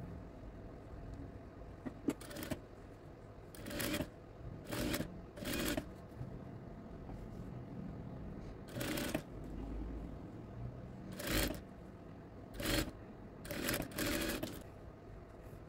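Industrial sewing machine stitching fabric strips in about ten short bursts of roughly half a second each, some in quick pairs, over a faint steady motor hum.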